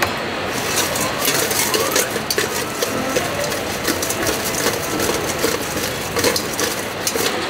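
Metal spoon and then metal tongs clicking and scraping against a stainless steel mixing bowl as fried chicken pieces are tossed in seasoning, a quick irregular run of light clinks over a steady kitchen background hum.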